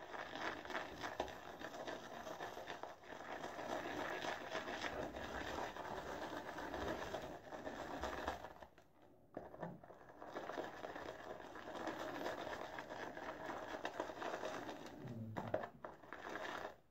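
Boar-bristle shaving brush whipping shaving soap into lather in a bowl, with a wet churning that runs on steadily and pauses briefly about nine seconds in. The lather is being built up as water is added a little at a time.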